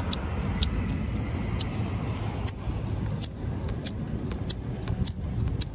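Wind rumbling on the microphone while a BIC disposable lighter's spark wheel is flicked over and over, giving repeated sharp clicks about two a second: the lighter will not stay lit in the wind.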